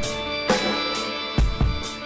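Background music: guitar chords over a drum beat.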